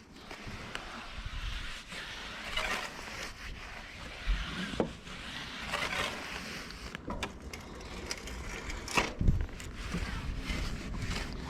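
Big soft-bristled brush scrubbing a mountain bike frame soaked in bike cleaner, agitating the dirt loose: uneven swishing strokes with a few knocks.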